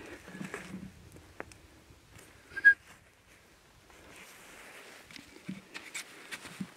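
A single short, sharp animal call about two and a half seconds in, over faint rustling and small clicks.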